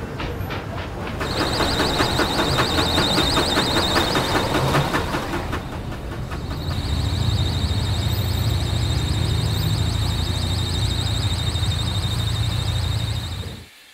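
An old sedan's slipping fan belt squealing loudly in a rapid, even pulse over the engine's low running, so the car sounds like a steam train. The squeal breaks off briefly around the middle and starts again.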